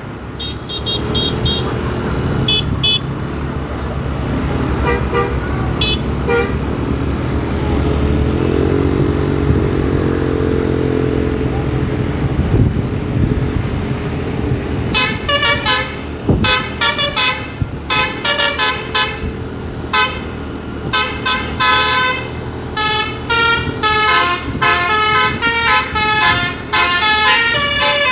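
Bus basuri telolet horn: a few short toots in the first few seconds over a low engine rumble, then from about fifteen seconds in a long run of rapid, multi-pitched horn blasts playing a tune.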